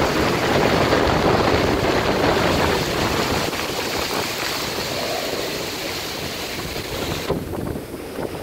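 Heavy rain pouring down in a thunderstorm, with gusting wind buffeting the microphone. Near the end the rush thins and drops for a moment.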